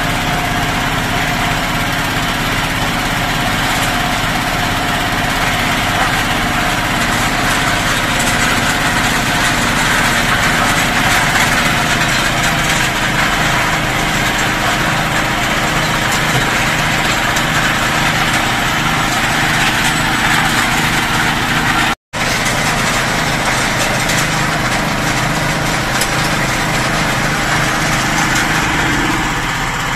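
Small single-cylinder engine running steadily at an even speed, driving the water pump of a water-well drilling rig. The sound drops out briefly about two-thirds of the way through.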